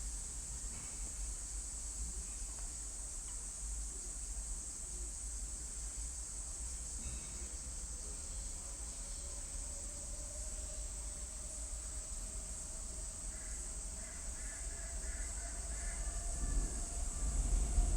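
Steady high-pitched chorus of crickets or similar insects over a low outdoor rumble, with a few faint bird calls. From about halfway in, a distant engine hum rises slowly in pitch and grows louder near the end as it approaches.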